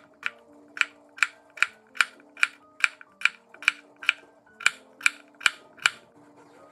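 Kitchen knife slicing a cucumber on a bamboo cutting board: a steady run of sharp taps, about two and a half a second, as the blade cuts through and hits the board, stopping about six seconds in.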